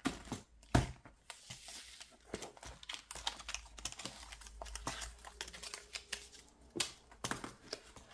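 Hands handling a small ring binder and its plastic card sleeves: a run of light clicks, taps and rustles, with a few sharper clicks about a second in and near the end.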